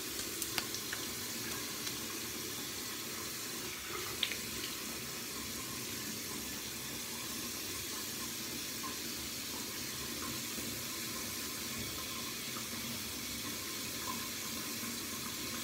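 Water running steadily from a tap into a sink, with a few light clicks in the first few seconds.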